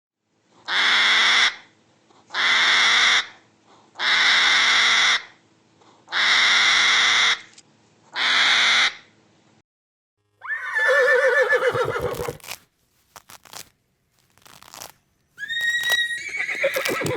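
A series of animal calls: five harsh, raspy calls of about a second each, evenly spaced. Then a different, wavering call, a few short clicks, and a higher-pitched call near the end.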